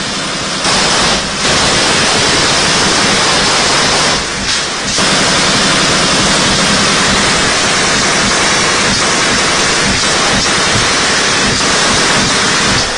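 Sustained machine-gun fire at close range, the shots so rapid and loud that they merge into a continuous distorted noise, with two brief lulls, about half a second in and about four seconds in.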